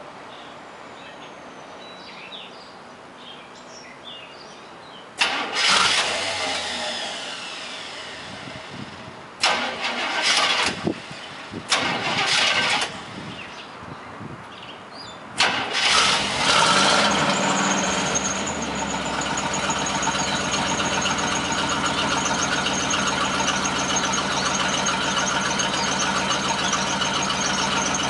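The 1976 Chevy Van 30's GM 350 V8 is cold-started and heard from the exhaust end. About five seconds in comes a first loud burst that fades away, then two shorter bursts of cranking and firing. Around fifteen seconds in it catches and settles into a steady idle with a thin high whine over it.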